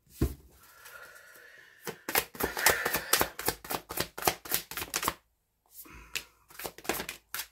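Tarot deck being shuffled by hand: a rapid run of card clicks and slaps lasting about three seconds, then a shorter run near the end.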